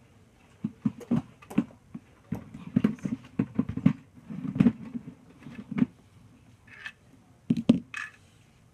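LEGO plastic sections being handled and fitted back onto a LEGO house: an irregular run of clicks and knocks.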